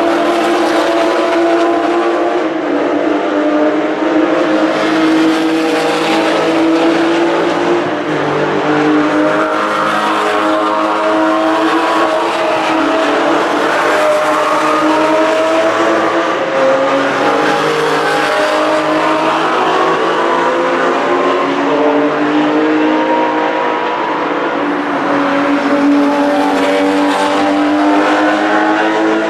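Porsche sports and race car engines at speed on a racetrack. Several engine notes overlap, their pitch rising and falling over and over as the cars accelerate, shift and pass.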